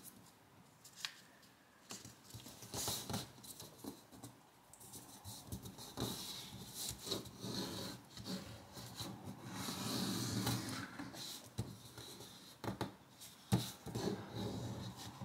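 Sheet of origami paper being folded in half and creased on a tabletop: irregular soft crackling and rubbing as fingers slide and press along the fold, with a few sharper crinkles near the end.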